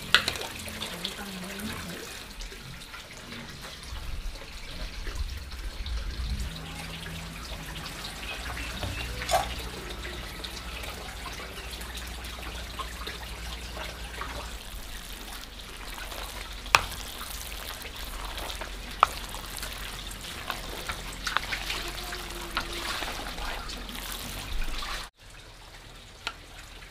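Chopped greens being tossed and mixed with chopsticks in a large bowl: a soft, wet rustling with a few sharp clicks. It drops abruptly quieter near the end.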